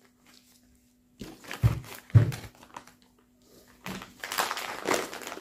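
Two dull thuds about half a second apart as plastic-wrapped food packages are set down on a table, followed from near the end by the crinkling of plastic bags being handled.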